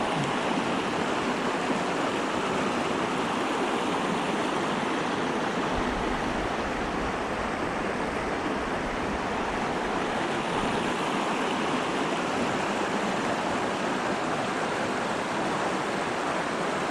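River in flood, fast brown water surging through woodland around tree roots and over the bank: a steady rush.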